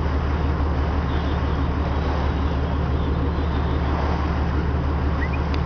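Charter fishing boat's engine running with a steady low drone, under a constant wash of water and wind noise.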